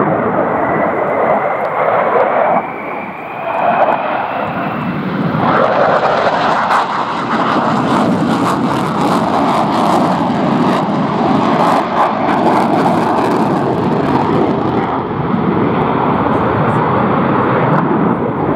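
Sukhoi Su-27 fighter's twin AL-31F turbofan jet engines in a display flight: loud, continuous jet noise with a thin rising whine over the first few seconds and sharp crackles through the middle stretch.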